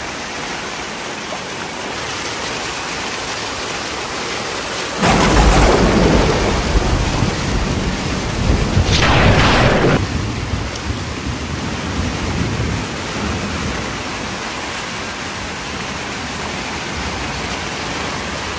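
Heavy tropical-storm rain pouring steadily onto flooded ground. About five seconds in, a loud clap of thunder breaks in and rumbles on for about five seconds, with a second crackling peak partway through.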